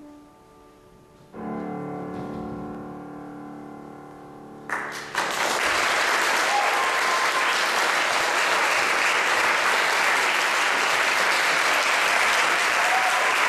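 A closing piano chord rings out and slowly fades, then about five seconds in the audience breaks into steady applause, which is the loudest sound.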